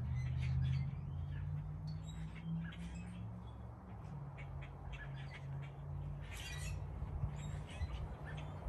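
Wild birds calling: many short, high chirps scattered throughout, over a steady low hum.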